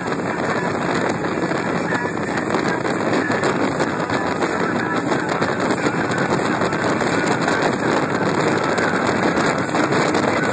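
Powerboats running at speed side by side: a steady, loud rush of engine noise, hull spray and wind.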